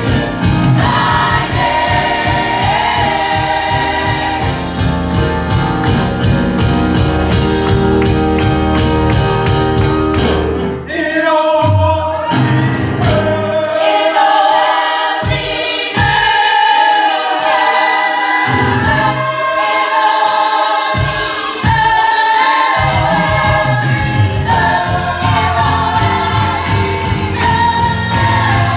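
Gospel choir singing a worship song with a band. About ten seconds in, the bass and drums drop away, leaving the voices over a few scattered low hits. The full band comes back in near the end.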